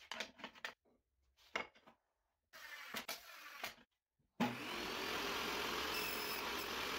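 A few light knocks of wooden strips being picked up and laid down, then a benchtop table saw switched on about four seconds in, its motor running steadily with the blade spinning free.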